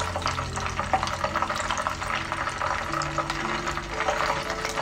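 Whole chicken frying in hot oil in a pan: the oil sizzles and crackles steadily with many small pops.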